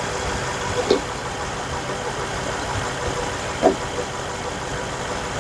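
BMW 750i's twin-turbo V8 idling steadily, kept running so the automatic transmission's fluid level can be checked at the fill plug. Two short knocks, about a second in and near four seconds.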